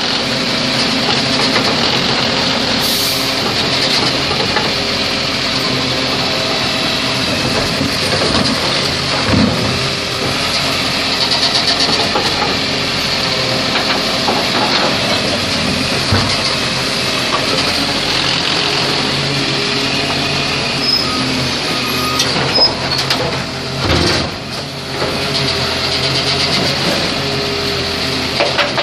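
Volvo side-loader garbage truck running steadily while its hydraulic arm lifts and tips wheelie bins into the hopper. There is a brief hiss about three seconds in, and several knocks and clanks of the bins later on.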